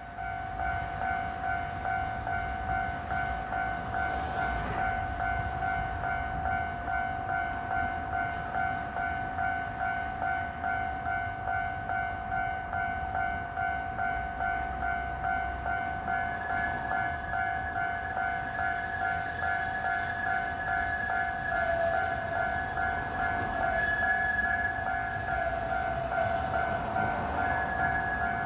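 Japanese level crossing warning bell ringing in a fast, even repeat of two-tone dings. About halfway through, a second, slightly higher bell tone joins in.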